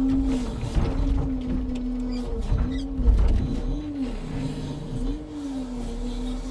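Timber truck's engine and crane hydraulics running while the crane loads logs: a steady hum that rises and falls in pitch several times as the crane moves, with a dull knock about three seconds in.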